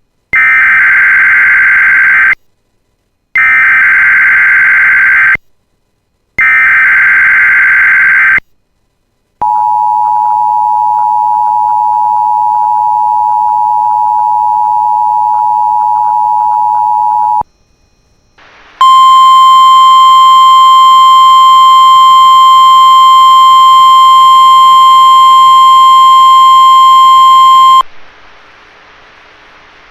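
Emergency Alert System test tones: three short screeching digital header bursts, then about eight seconds of the two-tone EAS attention signal, then about nine seconds of a single steady, shrill warning-alarm tone of the NOAA Weather Radio kind, which cuts off sharply and leaves a faint hiss. This tone sequence opens a test tornado warning.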